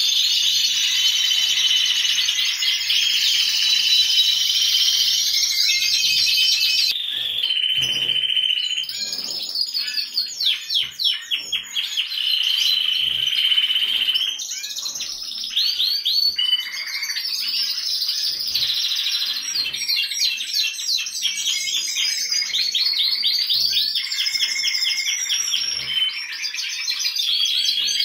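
Many caged canaries singing together: dense, overlapping rapid trills and chirps that carry on without a break.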